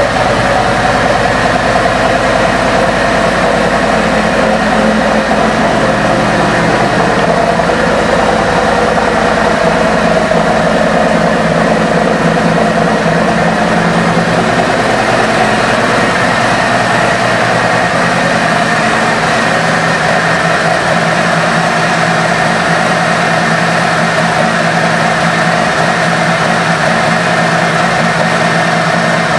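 2019 Harley-Davidson Street Glide Special's Milwaukee-Eight V-twin, fitted with an aftermarket exhaust, idling steadily.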